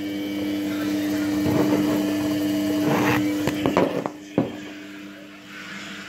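Steady hum of a running Indesit washing machine, overlaid by rustling handling noise and a handful of knocks between about three and four and a half seconds in, the last one the sharpest.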